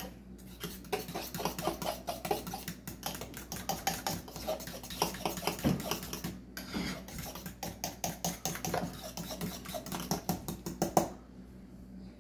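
A utensil stirring thick hummus in a bowl, with rapid clinks and scrapes against the bowl, as seasonings are mixed in. The stirring pauses briefly a little past halfway, then goes on and stops about a second before the end.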